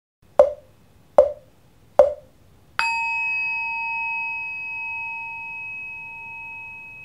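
Three sharp, hollow knocks evenly spaced just under a second apart, then a single struck bell that rings on with several clear overtones and slowly fades.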